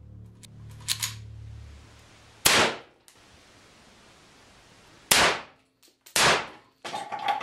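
Three gunshots inside a concrete bunker, each with a short echoing ring. The first comes about two and a half seconds in, the other two about a second apart a few seconds later. Small metallic clinks follow near the end.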